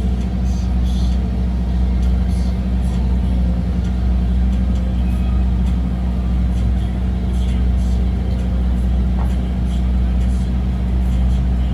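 A boat's engine running with a steady low drone throughout.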